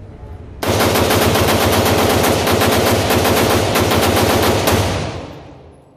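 AR-15-style rifle fired as a magazine dump: a fast, unbroken string of shots starting about half a second in and lasting about four seconds, echoing in an indoor shooting range, with the echo fading out after the last shot.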